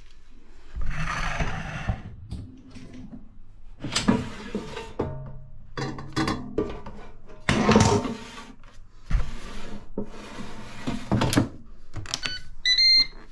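Clattering and scraping as a small metal bowl is handled with plastic tongs and set into a Ninja dual-basket air fryer's drawer, with several separate knocks and rubbing sounds. Near the end come short electronic beeps from the air fryer's control panel as it is set.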